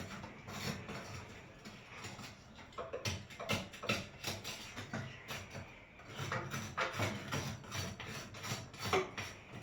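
Irregular scraping and knocking on built-up freezer ice during a fridge defrost, short strokes at an uneven pace.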